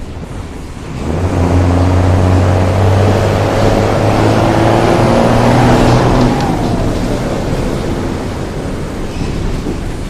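Diesel locomotive engine working hard as it passes, a deep engine sound loud from about a second in, then fading after about six seconds.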